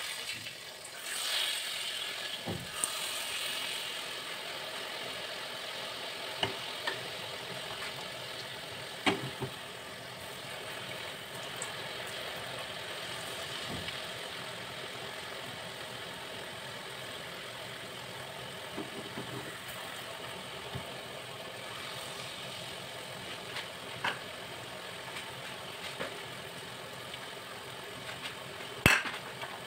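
Jalebi batter frying in hot oil in a kadhai: a steady sizzle, with a few sharp clicks or knocks, the loudest near the end.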